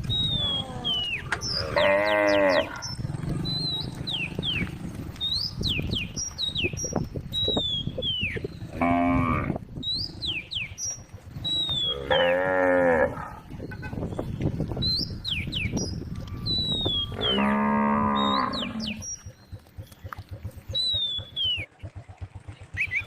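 Cows mooing: four long, low calls spread across the stretch, one every few seconds. Short high chirps come and go between them.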